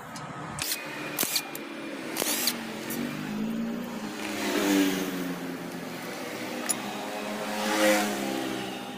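A few sharp metal clinks in the first couple of seconds as bolts come off the engine. Behind them, motor vehicle engines revving and passing, their pitch rising and falling.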